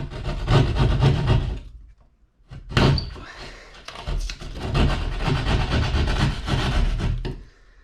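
Hand drywall saw cutting gypsum board to enlarge a hole so an electrical box fits, a dense scratchy rasping with a short pause about two seconds in.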